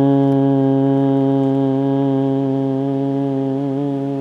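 Voices holding a long, low 'choo' on one steady 'oo' tone, the kidney healing sound of Chinese medicine. The tone starts to waver slightly near the end.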